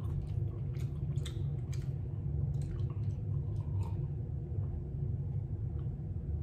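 Steady low hum of room tone, with a few faint clicks and small mouth sounds in the first three seconds.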